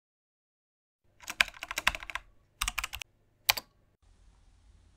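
Computer keyboard typing: a quick run of keystrokes starting about a second in, a shorter second run, then a single keystroke.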